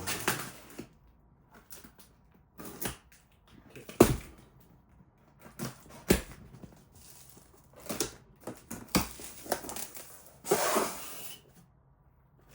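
A knife cutting through the tape of a cardboard box and the cardboard being pulled open: irregular scrapes, crackles and rustles with a few sharp knocks, the loudest about four seconds in, and a longer rustle near the end.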